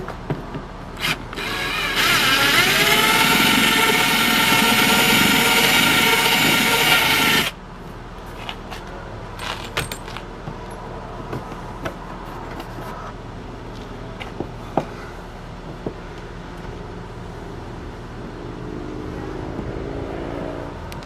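Cordless drill spinning up with a rising whine, running steadily for about five seconds as it bores a mounting hole through the kayak's plastic deck, then cutting off suddenly. Small clicks and taps from handling follow.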